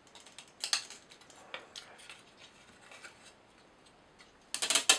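Small laser-cut plywood parts clicking and rubbing as fingers press them into slots in a plywood board: a few scattered sharp clicks, then a quick run of clicks near the end.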